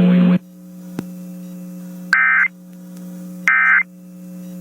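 Emergency Alert System end-of-message (EOM) signal: two short bursts of digital data tones, about a third of a second each and about 1.4 s apart, over a steady low hum.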